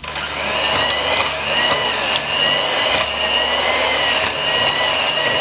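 Electric hand mixer switched on and running steadily, its beaters whirring through thick, freezer-cold chocolate truffle cream in a glass bowl, with a steady high motor whine.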